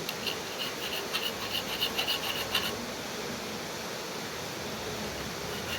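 Hand file scraping on the steel shaft of a washing-machine spinner motor, smoothing and finishing a groove cut into the shaft.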